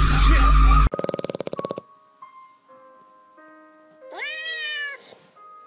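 A loud noisy sound cuts off abruptly about a second in. A second of rapid, even buzzing pulses follows, then soft tinkling music of held single notes. Near the end comes a single meow-like call that rises and then falls over about a second.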